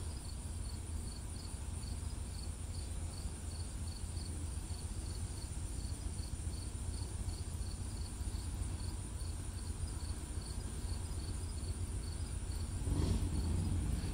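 A cricket chirping steadily, about two short high chirps a second, over a low steady rumble.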